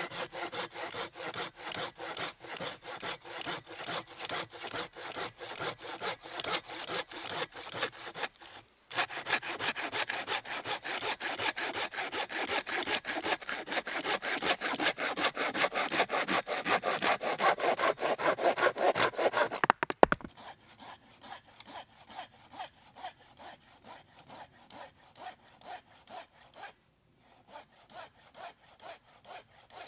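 Folding hand saw cutting through a small dead log in quick, even back-and-forth strokes. They break off briefly about nine seconds in, then grow louder until a sharp crack about twenty seconds in, after which the strokes go on much more faintly.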